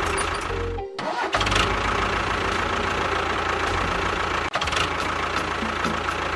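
A vehicle engine running steadily, broken by a brief cut about a second in and another at four and a half seconds.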